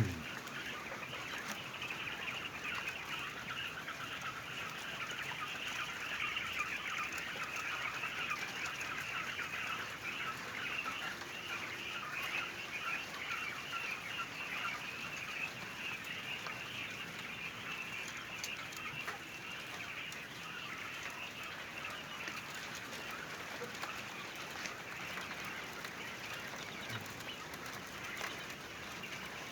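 A flock of laying quail calling and chirping together in a steady, dense chatter of many small overlapping calls.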